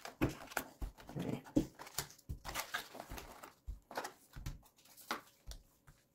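Unpacking a cardboard kit box: the flap is handled while plastic polish tubes, foam polishing pads and foil sachets are lifted out and set down on a carpet, making a string of soft, irregular taps and rustles.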